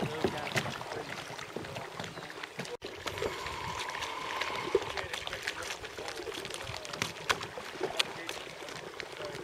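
Double-bladed kayak paddles dipping into lake water, with irregular small splashes and drips off the blades and water lapping at the hulls of sit-on-top kayaks. The sound drops out for an instant about three seconds in.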